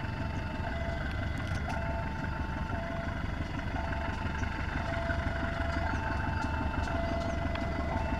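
CC 201 diesel-electric locomotive's GE V8 diesel engine running with a steady, heavy low rumble. Over it a two-tone warning signal alternates between a higher and a lower note, each held about a second.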